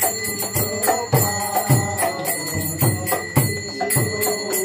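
Music with a steady drum beat of about two beats a second.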